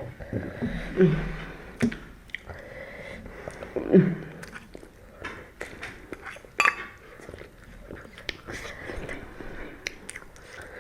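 Close-up sounds of people eating ramen noodles: chewing with scattered sharp mouth clicks, and a couple of brief voice sounds about a second in and again around four seconds.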